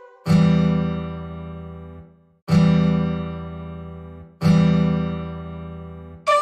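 Background music: three sustained chords on a plucked string instrument, each struck and left to ring and fade, about two seconds apart.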